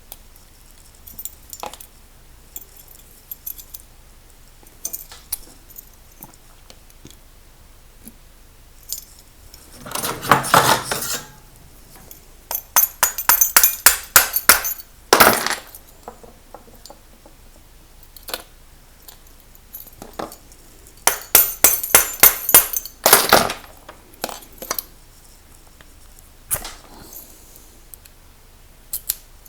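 Small metal padlock parts and tools clicking and clinking while an American Lock 1106 padlock is reassembled by hand. There are scattered single taps, a scraping rustle about ten seconds in, and two runs of rapid clicking, one just after that and one about twenty-one seconds in.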